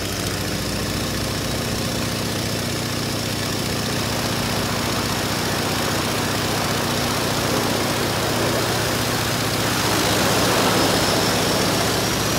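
Floatplane engine running steadily, a droning engine noise heard inside the cabin. It grows slightly louder about ten seconds in, with a thin high whine that climbs slowly near the end.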